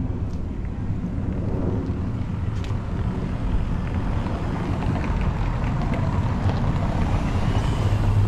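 Outdoor street ambience: a low, steady rumble of wind on the microphone and distant traffic, with a few faint clicks of footsteps on the cobbles.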